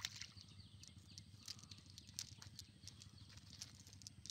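Faint, scattered ticks and rustles from a wet cast net and its lead weights being handled on grass.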